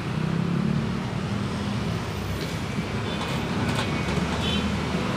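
Street traffic: the steady engine hum of motor vehicles running past.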